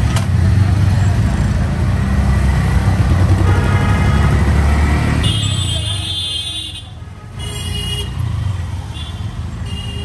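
Busy street traffic with auto-rickshaws: a heavy low engine rumble for the first half, then vehicle horns tooting several times in short blasts during the second half.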